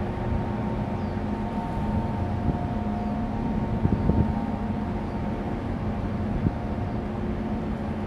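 Large container ship passing close by: a steady low drone of its machinery, with several steady hum tones over a rumbling low end.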